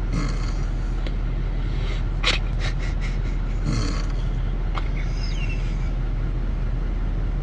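Snoring: rough, snorting breaths come about every four seconds, and a short falling whistle sounds about five seconds in. A steady low hum runs underneath.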